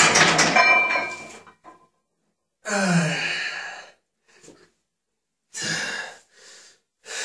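A man breathing hard right after a maximal bench press set: about six loud, gasping exhalations with short pauses between them, one of them voiced as a long sigh that falls in pitch.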